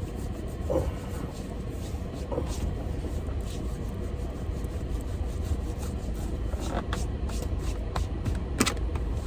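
Faint background music over a steady low rumble, with a few soft clicks near the end.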